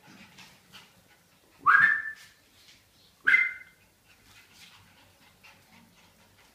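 Siberian husky puppy giving two short, high-pitched yelps about a second and a half apart, the first sweeping sharply up in pitch.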